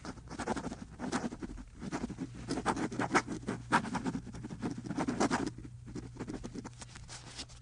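Pen nib scratching across paper in quick handwritten strokes, as when writing a signature, over a low steady hum.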